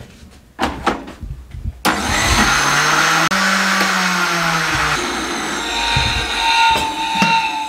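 Electric countertop blender (juicer-blender) blending yogurt with water. A few clicks as the jug is handled, then the motor starts suddenly about two seconds in with a rising whir and runs steadily with a whine.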